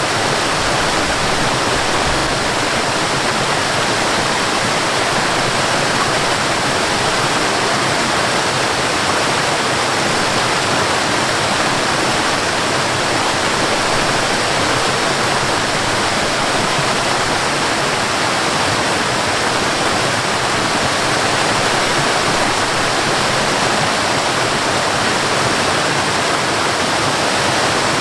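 Waterfall: water falling from height into a pool, a steady, even rush.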